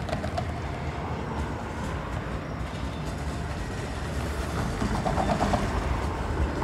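Toronto TTC Flexity Outlook low-floor streetcar rolling through a street intersection, its wheels rumbling on the rails with a steady noise of street traffic around it. There is a short run of sharper rail sounds about five seconds in.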